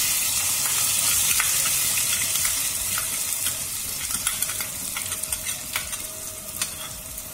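Freshly washed barnyard millet (samak) sizzling as it is tipped into hot ghee in a stainless-steel kadhai, while a steel spoon scrapes and clicks against the pan. The sizzle is loudest as the grains go in and eases slowly; this is the start of roasting the millet in ghee.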